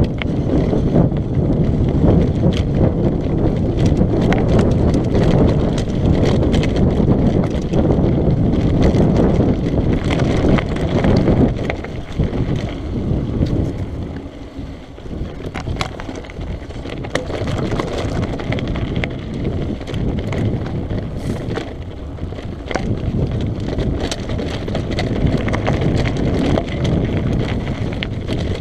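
Mountain bike descending a rocky, loose-stone trail: wind buffeting the GoPro microphone with a steady rumble, tyres crunching over gravel and the bike rattling, with many short clicks and knocks. It eases for a few seconds about halfway through, then picks up again.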